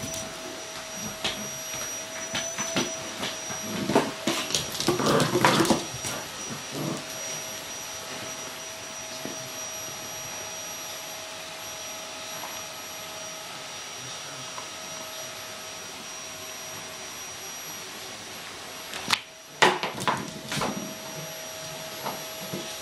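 Vacuum cleaner running steadily, with a constant whine over its hum. It is broken by clusters of short, loud sounds about four to six seconds in and again near the end.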